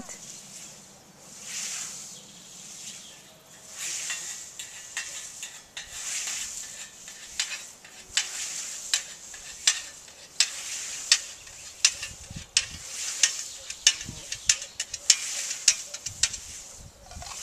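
Hand scythes swishing through standing meadow grass, several mowers cutting in a rhythm of strokes every couple of seconds, with sharp crisp clicks that come more often in the second half.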